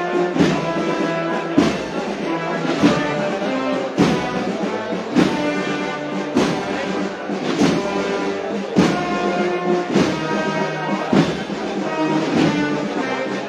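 Procession wind band playing a slow processional march: sustained brass chords over a regular crash of cymbal and bass drum about every 1.2 seconds.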